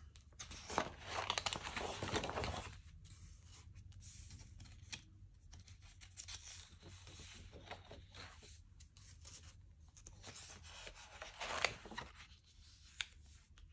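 Paper pages of a discbound planner being turned by hand: rustling and rubbing of the sheets as they slide over the plastic discs and are smoothed flat. The rustle is loudest in the first couple of seconds and again near the end, with a few small clicks.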